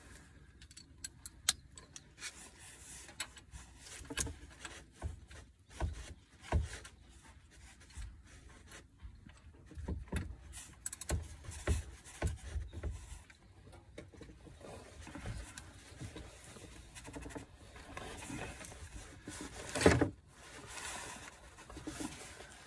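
Light metal clicks and scrapes of a wrench being fitted to and worked against an engine oil drain plug from under the car, with rubbing and rustling of clothing. It comes and goes in small knocks, with one louder sound about twenty seconds in. The plug is tight and not yet breaking loose.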